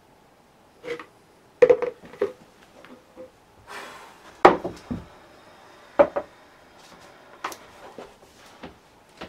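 Objects being handled and set down on a worktable: a string of irregular sharp knocks and clinks, about half a dozen clear hits.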